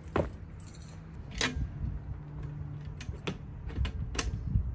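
Aluminium fold-down entry step of a truck camper being handled and adjusted, giving about six separate metal clicks and clanks spread over a few seconds.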